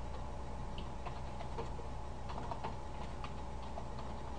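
Typing on a computer keyboard: irregular, light key clicks as a username and password are entered, over a steady low hum.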